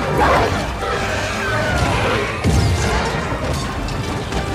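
Action-film battle soundtrack: music mixed with crashes, impacts and a deep low rumble.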